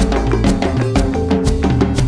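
Background music with a steady beat: percussion strikes about twice a second over sustained bass and melody notes.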